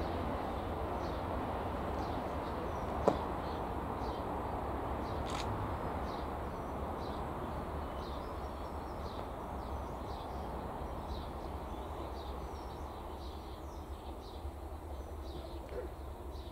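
Low, steady rumble of a distant diesel locomotive hauling a passenger train on approach, with small birds chirping over it. A single sharp click sounds about three seconds in.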